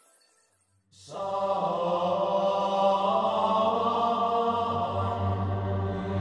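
Background music: sustained chords come in about a second in, with a low drone joining a few seconds later.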